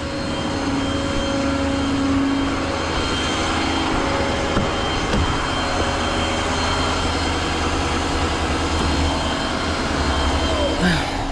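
A vehicle driving: steady engine and road noise with a low hum.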